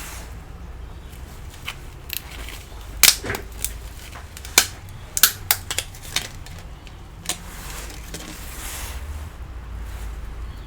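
A string of sharp clicks and taps from small laptop parts being handled, bunched in the middle, over a low steady hum.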